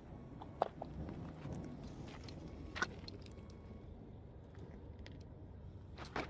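Faint low background rumble with a few scattered sharp clicks or knocks, one about half a second in, one near the middle and one near the end.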